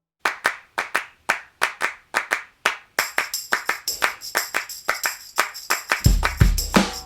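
Background music starting from silence with a beat of sharp handclaps, about three a second. A steady high shimmer joins about three seconds in, and a deep bass beat comes in near the end.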